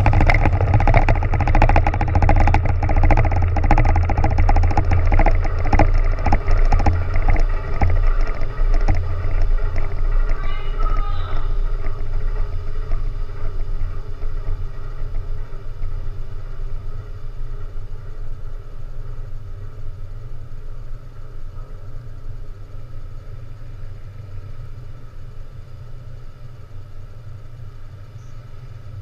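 After-rumble of a large underwater explosive charge set off in full ship shock trials: a dense crackling rumble that fades slowly over many seconds as the water plume collapses. A steady low drone runs underneath.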